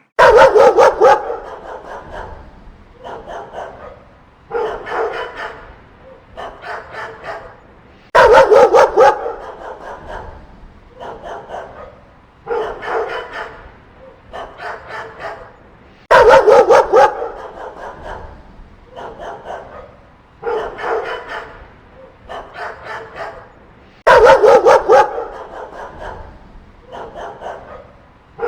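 Dog barking in rapid volleys. A loud burst of quick barks comes about every eight seconds, each followed by several quieter clusters of barks.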